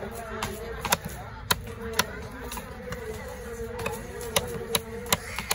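A heavy fish-cutting knife chopping trevally on a wooden block, giving sharp strikes at irregular intervals about half a second to a second apart. A steady buzz runs underneath.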